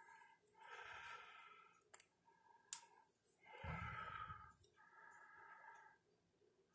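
Quiet handling of a mother-of-pearl Bulldog canoe pocketknife as a blade is pulled open, with a faint click about two seconds in and a sharper click a little under three seconds in. A soft breath follows about a second later.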